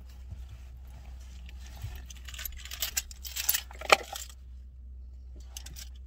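Small metal objects jingling and clicking as they are handled, in a cluster about two seconds in that ends with one sharp click near four seconds in.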